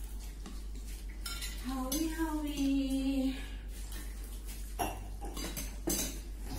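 Eating utensils clinking and knocking against dishware, a few sharp knocks spread through, with a drawn-out voiced hum from the eater about two seconds in. A steady low electrical hum runs underneath.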